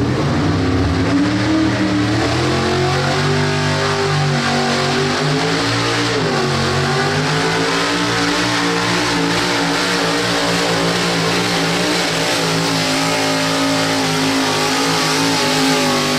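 Chevrolet pickup's engine running hard at high revs under load while pulling a sled down a dirt track, its pitch wavering and dipping briefly about six seconds in.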